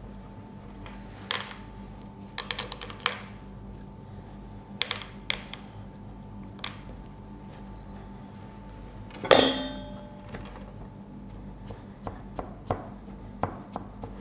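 A metal spoon scraping and tapping against a metal baking tin as shortbread dough is pressed down, giving scattered clicks and short scrapes. One louder metallic clink rings briefly about nine seconds in.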